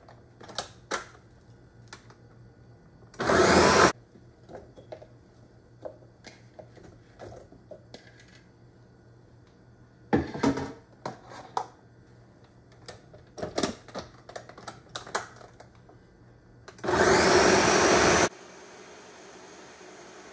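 Countertop blender puréeing tomatoes, cilantro and water in two short runs, one of under a second about three seconds in and one of about a second and a half near the end. Between the runs there are scattered clicks and knocks of the pitcher lid being locked on and handled.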